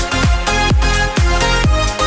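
Background electronic dance music with a steady kick-drum beat, a little over two beats a second.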